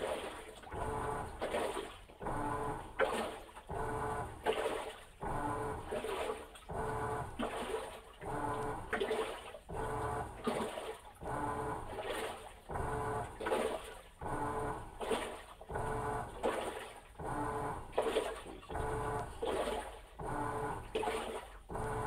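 Insignia washing machine working a load on a quick wash cycle: water sloshing in regular surges, about one a second, over the motor's steady hum.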